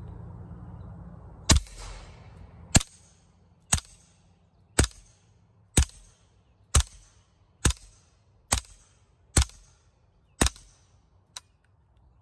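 Suppressed CZ Scorpion Evo 9mm carbine firing subsonic rounds through an aluminum-baffled suppressor: about ten shots at roughly one a second, each a sharp report with a short ringing tail. A faint click comes near the end.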